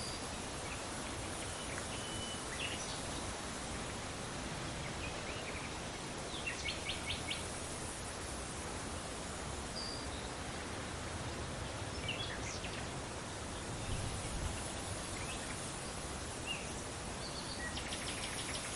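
Steady wind hiss with scattered short bird chirps and calls over it, including two quick trills of about five notes each, one about a third of the way in and one near the end.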